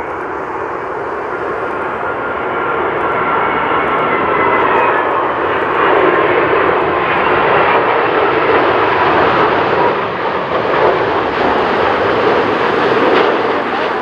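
Air New Zealand Boeing 787-9's Rolls-Royce Trent 1000 jet engines at approach power on final approach to landing. The jet noise grows louder over the first several seconds and stays loud, while a whine slides slowly down in pitch as the airliner passes.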